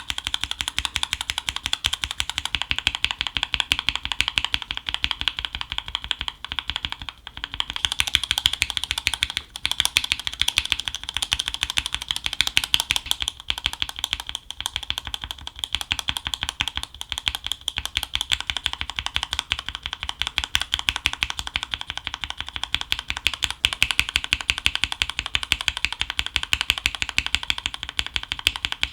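Mechanical keyboard fitted with Gateron yellow linear switches being typed on fast, a dense run of keystroke clacks. The upper part of the sound brightens about 7 to 8 seconds in.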